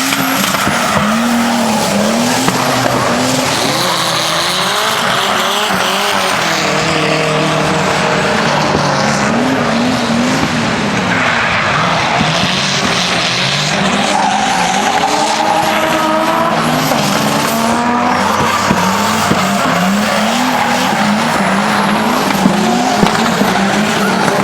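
Drift car engine revving hard, its pitch climbing and dropping again and again as the throttle is worked, under a continuous squeal of sliding tyres.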